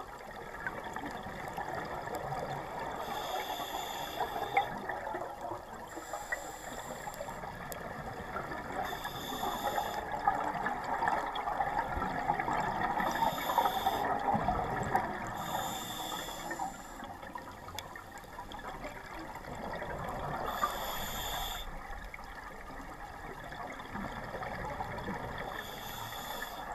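Scuba diver breathing through a regulator, heard underwater through the camera housing: a short high hiss of inhalation every few seconds, with bubbling and gurgling of exhaled air between.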